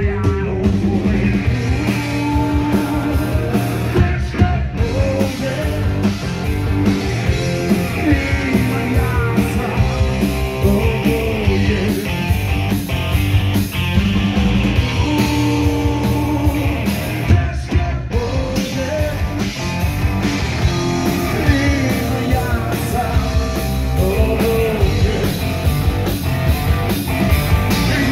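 Live rock band playing a loud song, with electric guitar, drum kit and a male singer.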